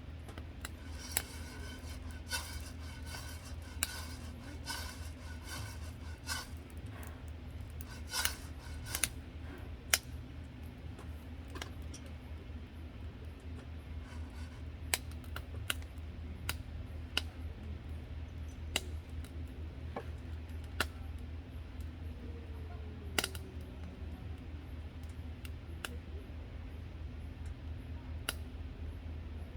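Metal utensils clicking and clinking: sharp, irregular clicks, denser with a light ringing in the first third and sparser after, over a steady low hum.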